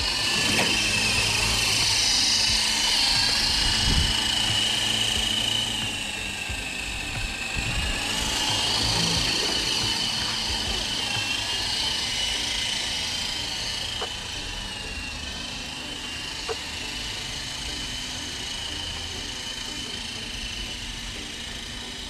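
Small electric motor and rotors of a toy remote-control helicopter whining at speed, a high steady tone that drifts up and down in pitch. It is loudest over the first several seconds and eases somewhat later on.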